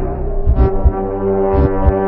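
Live band music: a long held, horn-like note comes in about half a second in and is sustained over low drum beats.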